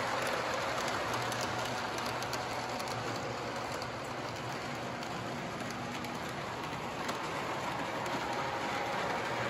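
Model trains running on the track around the Christmas tree: a steady rattling hiss of wheels on rail.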